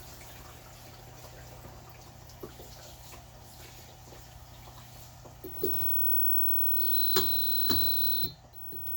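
LG WM2050CW front-load washer running with a low steady hum, then, about seven seconds in, a louder grinding with a high whine and clicks lasting about a second. The owner traced the grinding and the poor spinning to a malfunctioning rotor position (Hall) sensor.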